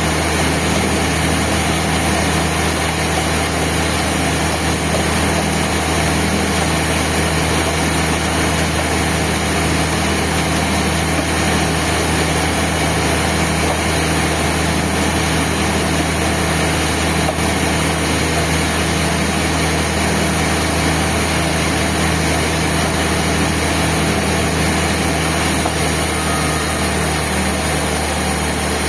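Band sawmill running steadily: a continuous machine drone with a constant low hum and a steady hiss, without pause or change.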